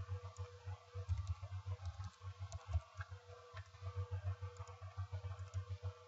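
Faint typing on a computer keyboard and mouse clicks, with irregular soft low thuds, over a steady low hum.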